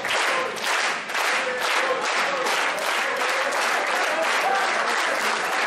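Wrestling crowd clapping in unison, about two claps a second, with many voices chanting along.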